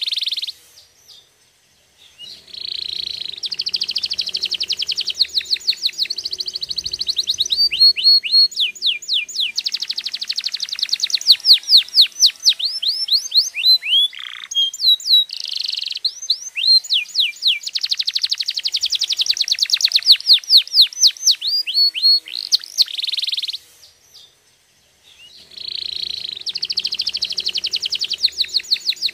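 Domestic canary singing long runs of fast, rapidly repeated trill notes and rolling tours, pausing for a second or two near the start and again near the end.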